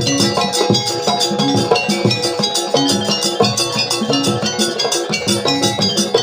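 Jaranan dance accompaniment: a gamelan-style ensemble of drums and ringing tuned metal percussion playing a busy, steady rhythm.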